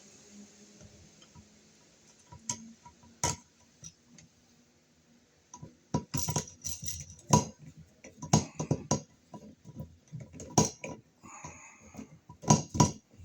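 Sharp metal clicks, taps and rattles of a wall receptacle being worked into a shallow electrical box and a screwdriver on its Phillips mounting screws. There are a few scattered clicks at first, then a dense, irregular run of clicks from about halfway through.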